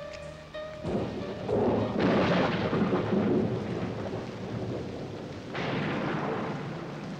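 Thunder rumbling over rain, a thunderstorm sound effect, with rolls that swell about two seconds in and again near the end.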